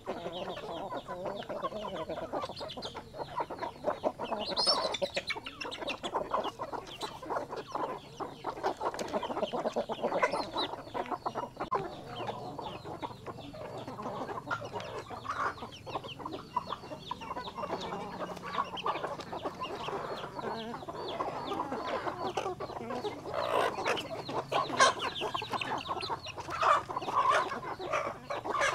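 A flock of chickens clucking continuously and overlapping while feeding, with many short sharp clicks among the calls and a higher, rising call about five seconds in.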